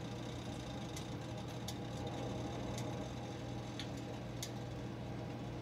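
Quiet kitchen room tone: a steady low hum with about five faint, sharp ticks scattered through it.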